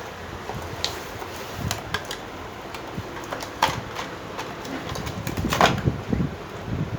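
Small plastic toy pieces and packaging being handled: scattered light clicks and taps, with a busier clatter about five to six seconds in, over a steady fan-like hum.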